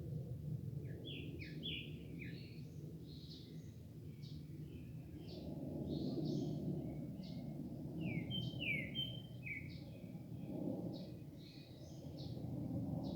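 Small birds chirping over and over, short high notes, some sliding downward, over a steady low rumble of background noise.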